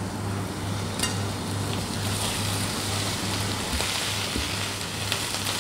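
Whole prawns sizzling in hot oil in a frying pan. The sizzle starts suddenly as they are tipped in, then carries on as they are stirred with a spatula, with a sharp knock about a second in.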